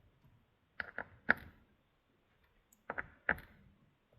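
Sharp metallic clicks from a hand ratchet wrench snugging down transmission valve body bolts: two groups of three clicks, about a second in and again about two seconds later.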